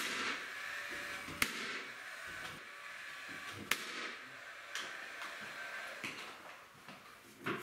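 Cordless finish nailer driving nails into picture-rail molding: sharp shots at the start, about a second and a half in, and nearly four seconds in, with softer knocks in between.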